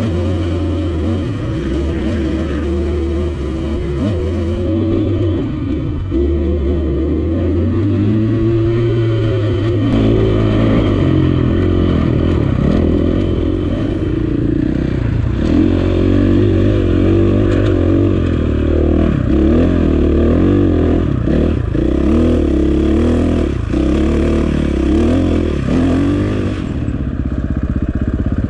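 Dirt bike engine running under way, its pitch rising and falling with the throttle, with scattered knocks and rattles.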